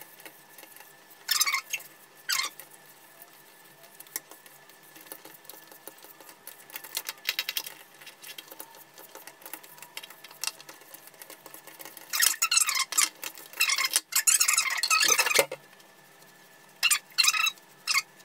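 Short rustling swishes of long hair being drawn through a flat iron and then stroked with a hairbrush, with faint clicks in between. The longest and loudest run of swishes comes about twelve to fifteen seconds in, and three quick brush strokes come near the end.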